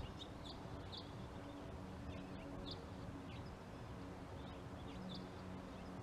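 Faint, short, high chirps of small birds, scattered every second or so, over a low steady hum.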